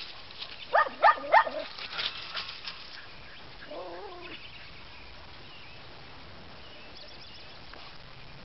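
A dog barking three times in quick succession about a second in, followed a few seconds later by a fainter, wavering animal call.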